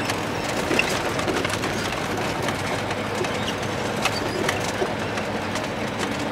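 Inside the cab of a diesel semi-truck at road speed: a steady engine drone and road noise, with scattered small clicks and rattles.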